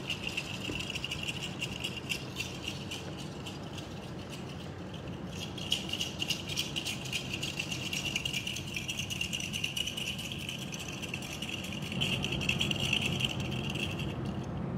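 Hand rattle shaken continuously in a fast, even clatter, louder from about five seconds in, stopping near the end.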